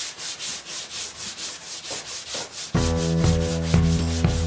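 Hand block sanding over body filler and primer on a 1967 VW Beetle's door: even back-and-forth scraping strokes, about three a second. About two-thirds of the way through, background music cuts in suddenly and is louder than the sanding.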